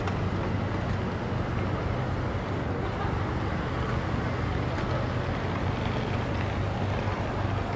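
Steady city traffic and street noise at a busy crossing: a constant low hum under an even hiss, with no single event standing out.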